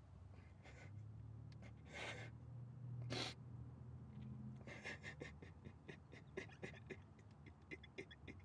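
A distressed man breathing heavily, with a sharp gasping inhale about three seconds in, over a low hum. From about five seconds in comes a run of quick, irregular ticks.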